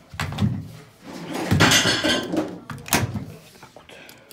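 Washing machine being loaded: thuds and knocks of its door, with a rustling scrape in the middle and a sharp knock near the end.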